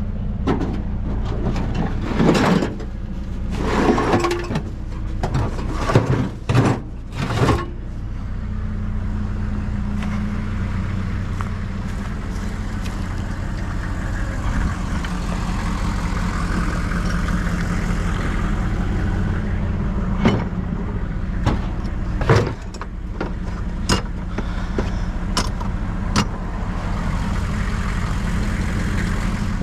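Truck driving, with a steady engine hum and road noise. A number of sharp knocks and clicks come through, several in the first eight seconds and more later on.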